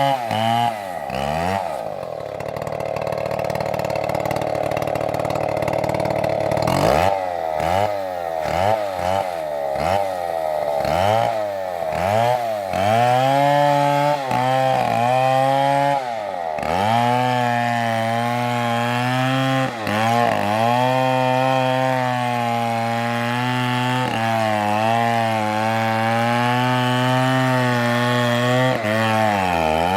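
Large two-stroke chainsaw at full throttle cutting into a tree trunk. Its pitch drops sharply and recovers again and again as the chain bogs in the cut, then holds steadier with small dips near the end.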